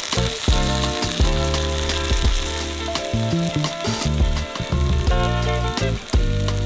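Food frying with a steady sizzle, over background music.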